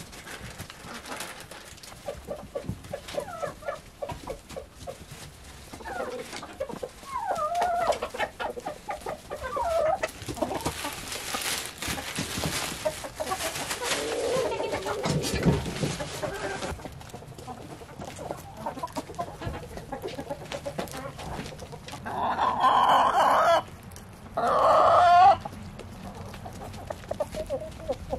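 A flock of chickens clucking, with a rooster crowing loudly in two parts near the end.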